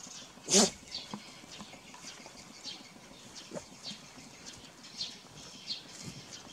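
A puppy and a dog scuffling in dry grass: scattered rustling and light scratchy ticks, with one short, louder sound about half a second in.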